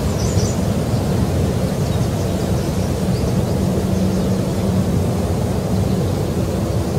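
Outdoor ambience: a steady low rumbling noise with a faint hum that comes and goes, and a few faint high chirps near the start and about halfway through.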